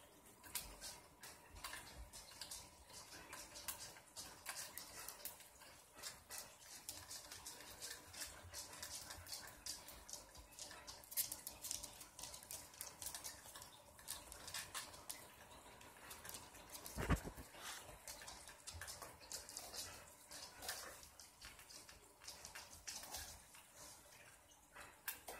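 Faint, irregular small clicks and scrapes of hand work on stuck screws in an RC car's plate, with one louder knock about 17 seconds in.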